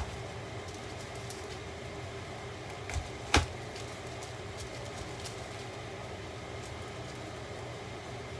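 Chef's knife slicing a red bell pepper, the blade knocking on the cutting board: a sharp knock at the start and two more about three seconds in, the second the loudest, with a few faint ticks between. A steady low hum runs underneath.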